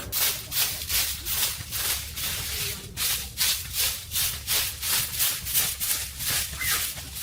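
Steady back-and-forth rubbing strokes by hand, about two and a half a second, a dry scratchy sound such as an abrasive worked over a surface.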